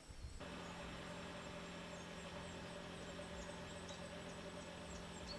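Faint steady low hum with a few fixed pitches that cuts in abruptly about half a second in, with faint high chirps over it.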